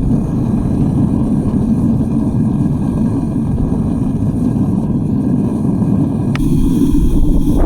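Strong wind buffeting the microphone: a dense, gusting low rumble that grows a little louder near the end.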